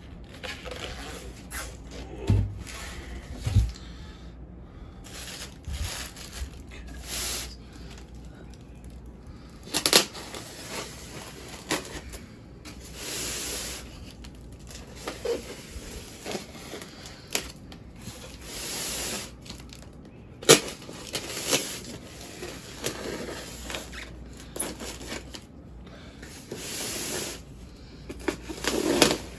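Packing material being handled while a large boxed statue is unpacked: irregular rustling, rubbing and tearing, with a few sharp knocks along the way.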